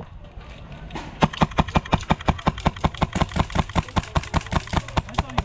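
Airsoft rifle firing a long, rapid string of shots, about eight a second, starting about a second in.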